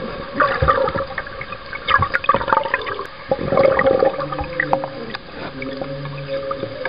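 Bubbling, gurgling water recorded underwater, with irregular knocks, busiest in the first half, over a steady low hum.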